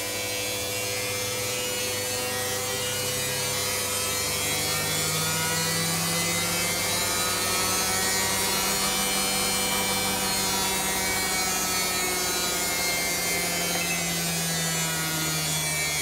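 Westinghouse Mastermind LF700B front-loading washing machine's brushed drive motor spinning the drum in the test mode's high-speed spin step. The motor whine climbs in pitch over the first few seconds, holds steady, then drops near the end as the spin slows.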